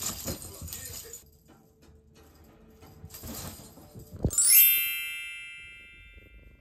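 A cat toy jingling and rattling as a cat pounces on it across a bed, ending in a thump. About four seconds in, a sparkly chime sound effect sweeps quickly upward and rings out, fading over about two seconds.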